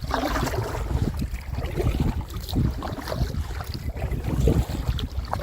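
Wind rumbling on the microphone over water splashing and lapping around a paddled canoe.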